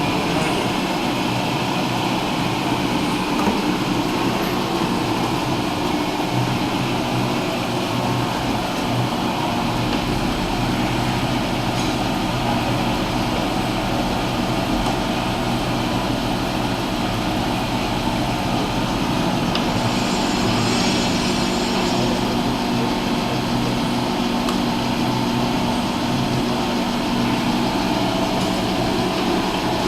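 1954 Cincinnati cylindrical grinder running under power: a steady mechanical hum of its motors with several steady tones. A deeper low hum joins about ten seconds in, and a faint high whine rises briefly around two-thirds of the way through.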